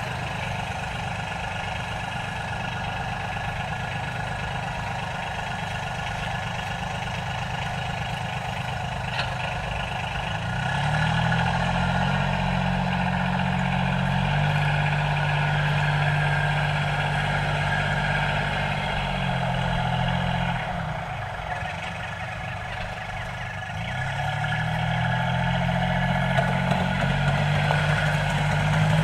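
Tractor engine running at a low idle, revving up about ten seconds in and holding the higher speed, then dropping back to idle and revving up again near the end.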